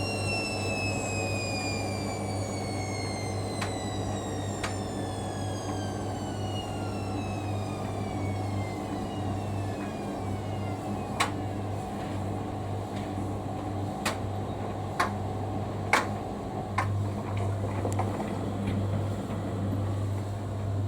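Hoover Dynamic Next washing machine's motor whining as its 1200 rpm spin winds down, the high whine falling steadily in pitch over about ten seconds, over a steady low hum. In the second half, a few sharp clicks and knocks as the drum slows.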